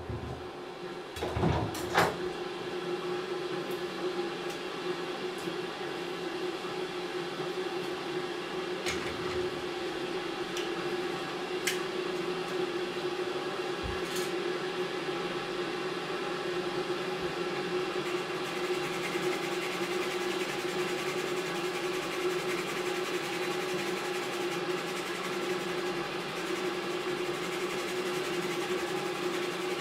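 Merguez sausages, white beans and egg sizzling gently in a de Buyer iron pan, over a steady hum. Two sharp knocks come about one and two seconds in.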